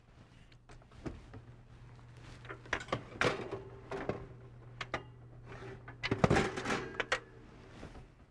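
Kitchen handling noises as a tray of patties goes in and out of the oven: a string of knocks and clatters, loudest about six seconds in, over a steady low hum that stops near the end.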